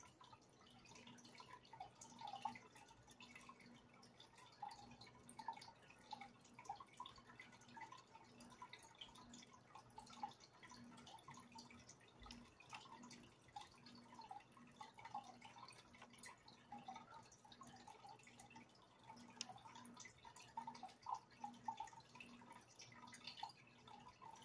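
Faint dripping and trickling of aquarium water, with a low steady hum underneath.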